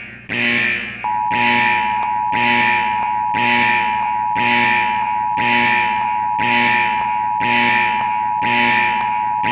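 Electronic danger alarm sound effect: a buzzy alarm blast repeating about once a second, each one fading quickly, with a steady high beep held over the pulses from about a second in.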